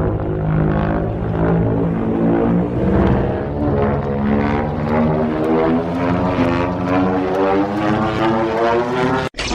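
Legendary Godzilla film sound effect: a long, deep, pulsing monster call with a droning, engine-like throb. Its pitch climbs slowly in the second half, and it cuts off abruptly just before the end, where another effect begins.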